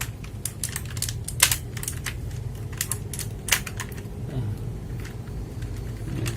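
Keys of an HP GK400Y mechanical keyboard with blue switches clicking as they are pressed, irregularly, with a couple of louder clacks.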